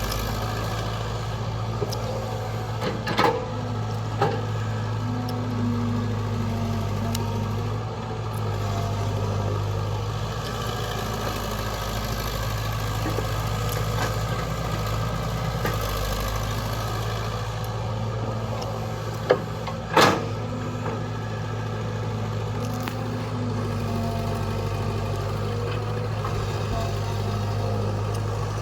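Diesel engine idling steadily, from the tractor or the excavator working the load, with a few sharp knocks, the loudest about twenty seconds in.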